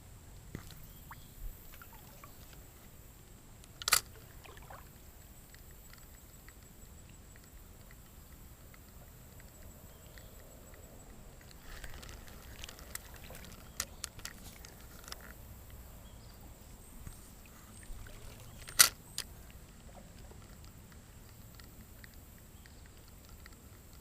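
Faint river-side ambience with trickling water, broken by a few sharp clicks and knocks: one about four seconds in, a run of small clicks in the middle, and the loudest one later on.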